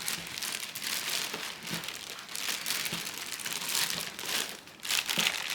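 Plastic packaging around a CPU tower cooler crinkling steadily as it is handled and unwrapped, growing a little louder near the end.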